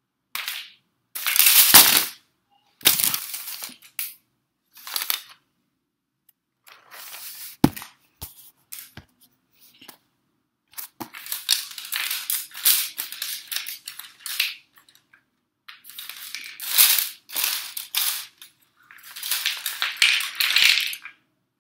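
Wooden popsicle sticks clattering onto a wooden floor as the stacked tower bursts apart, loudest about a second and a half in. It is followed by repeated bursts of sticks rattling and scraping against each other as a hand pushes through the pile.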